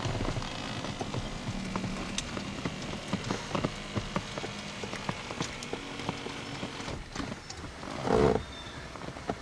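Irregular light clicks and knocks from the pickup's front seat and headrest being wrestled with by hand, with a short louder noise about eight seconds in.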